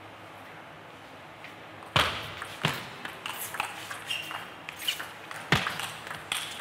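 Table tennis rally: the ball clicks sharply off the paddles and the table in quick succession, starting about two seconds in.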